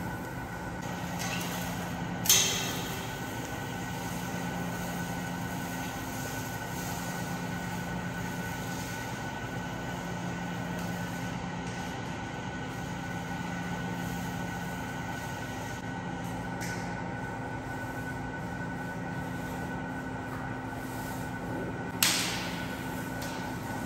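Steady mechanical hum with a few constant tones, broken twice by a sharp knock that rings briefly: once about two seconds in and once near the end.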